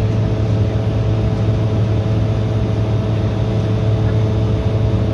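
Steady cabin noise inside an Embraer 175 airliner in flight: the drone of its GE CF34 turbofan engines and rushing air, with a strong low hum and a couple of steady higher tones running through it.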